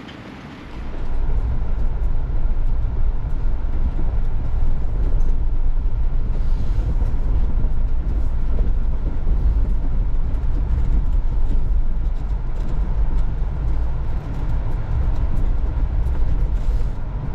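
A Jeep driving on a backcountry dirt road. A loud, steady low rumble of engine and road noise sets in about a second in and keeps going.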